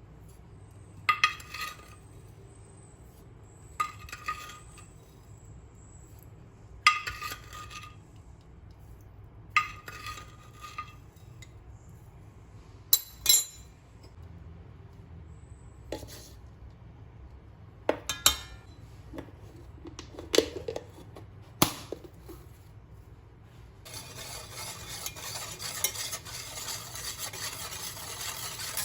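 Cake-making kitchen sounds: utensils clinking and knocking against bowls and dishes. There are four short scraping strokes a few seconds apart, then scattered clinks, and steady stirring in a bowl for the last five seconds.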